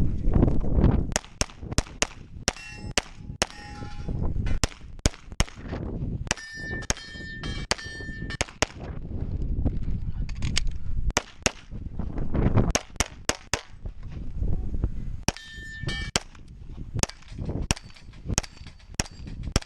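Glock 35 pistol in .40 S&W fired in fast strings of shots through a course of fire, with steel targets ringing when hit. Wind buffets the microphone in between.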